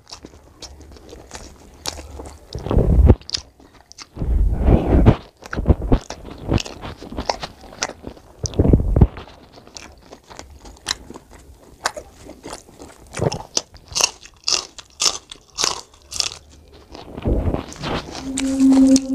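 Close-miked chewing of rice and mutton curry eaten by hand, with many sharp wet mouth clicks and smacks, densest a little past the middle.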